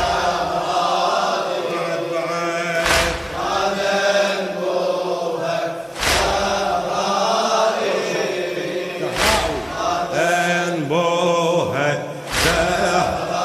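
Male voices chanting a Shia latmiyya lament in drawn-out, wavering melodic lines. A heavy percussive beat strikes about every three seconds, keeping the slow mourning rhythm.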